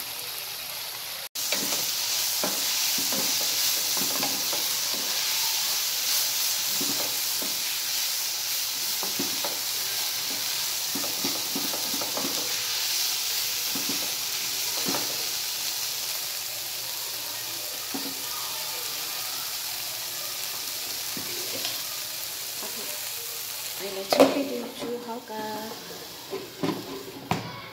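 Onions, tomatoes and green chillies sizzling in oil in a nonstick frying pan, stirred with a wooden spatula that scrapes and taps against the pan. Near the end a glass lid clatters onto the pan and the sizzle drops, muffled under the lid.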